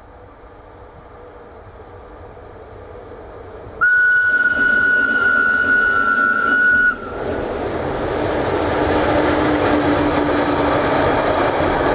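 SBB Cargo Re 421 electric locomotive approaching with a container freight train: a rumble that grows louder, then a single long horn blast on one steady pitch for about three seconds, followed by the loud rushing noise of the container wagons passing close by.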